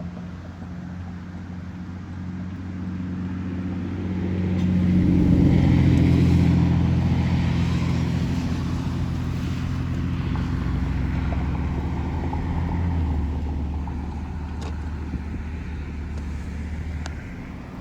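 Car engine and road noise heard from inside the cabin while driving, a steady low hum with a rushing sound over it. It swells louder about five seconds in and eases off slowly over the next several seconds.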